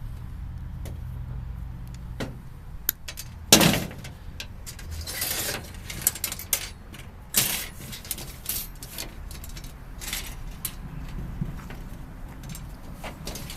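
Irregular clicks, clinks and short scrapes of metal parts and tools as a power strip is pulled apart for its copper wire, with a sharp knock about three and a half seconds in, over a steady low hum.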